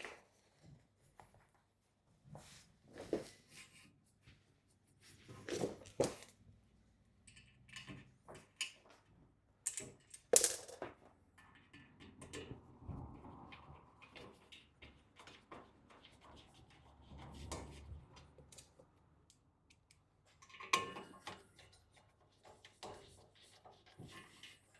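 Scattered clicks, knocks and light rattles of bed-frame parts being handled as a crossbar is fitted and screwed into place, with one sharper knock about ten seconds in.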